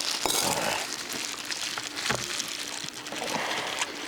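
Crunching and rustling of people eating grilled duck and handling the food, with a few sharp clicks and knocks, one about a third of a second in, one about two seconds in and one near the end.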